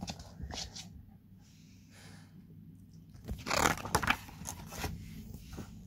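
Pages of a glossy booklet being turned by hand. There is a papery rustle about three and a half seconds in, then a few lighter rustles and taps. A faint low hum runs underneath.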